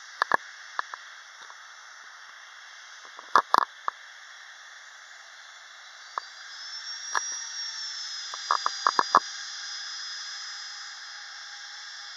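Distant Boeing 737-800's CFM56 jet engines spooling up for takeoff: a steady hiss with a high whine that rises about six seconds in, then holds as the sound grows louder. Scattered sharp clicks, with a quick run of them about nine seconds in.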